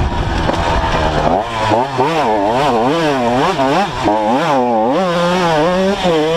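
Two-stroke Honda CR dirt bike engine under way, its revs rising and falling about twice a second as the throttle is worked, holding steadier near the end.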